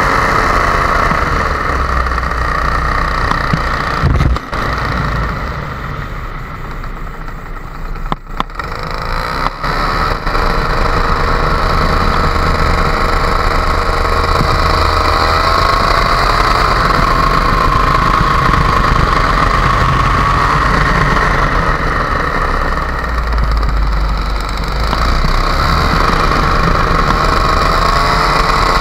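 Paramotor engine running steadily in flight, with wind on the microphone. The engine drops in level for several seconds about five seconds in, with a few knocks, then comes back up.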